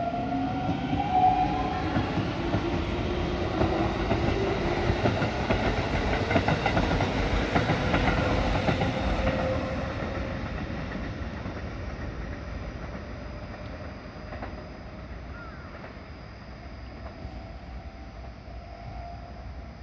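Keikyu 1000 series electric train pulling away, its traction motors whining upward in pitch as it gathers speed, with wheels clattering over the rails. The sound fades over the second half as the train recedes.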